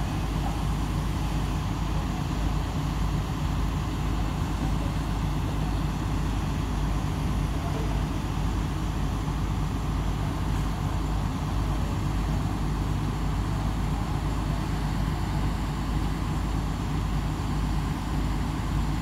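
Heavy machinery engine running steadily at idle, an even low drone that does not change.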